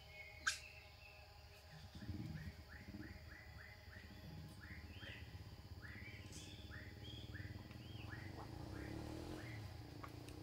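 A faint run of short, high chirping calls, several a second, beginning about two and a half seconds in, over a low rumble. A single sharp click comes about half a second in.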